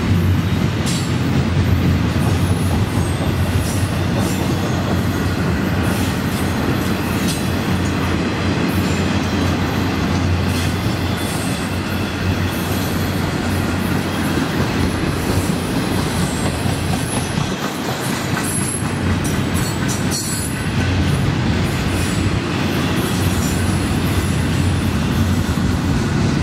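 Florida East Coast Railway intermodal freight train, with double-stack container cars and trailer cars, rolling past. Its wheels give a steady rumble on the rail, with frequent clicking and faint, intermittent high wheel squeal.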